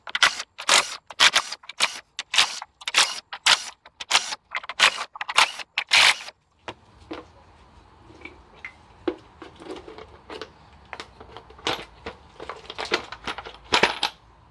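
Sharp metallic clicks from a hand tool working the valve cover bolts, about two a second for the first six seconds. After a short break come lighter scattered clicks and knocks, with a cluster near the end as the plastic valve cover is lifted off.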